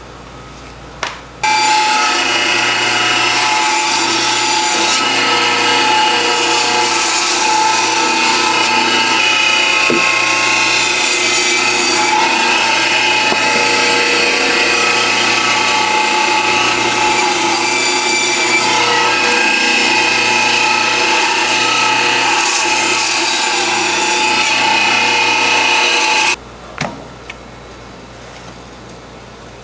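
Electric meat-cutting machine in a butcher's shop running steadily with a whine for about 25 seconds, switched on about a second and a half in and cut off abruptly near the end.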